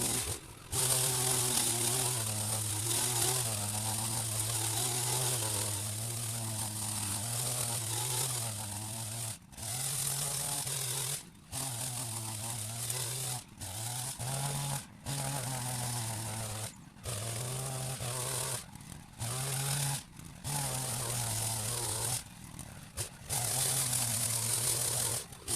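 Powered hedge trimmer running, a steady motor buzz as it cuts back a berberis hedge, broken by many short stops.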